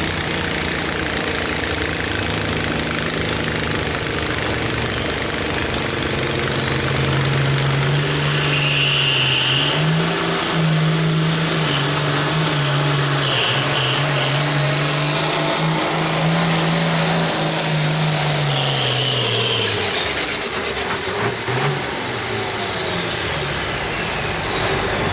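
Turbocharged International pulling tractor's engine making a full pull with the sled: it builds to full power a few seconds in and holds under load, with a high turbo whine rising over it. Both wind down about twenty seconds in as the pull ends.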